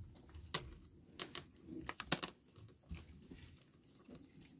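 Scattered small clicks and rustles of a nylon handline being worked by hand, with a few sharper ticks about half a second and two seconds in.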